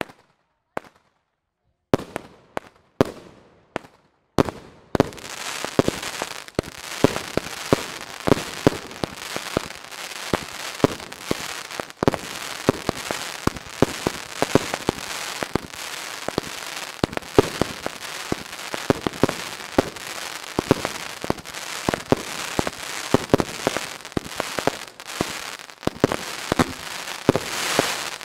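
Fireworks going off. A few separate bangs come first, then from about five seconds in a dense barrage of sharp bangs over continuous crackling.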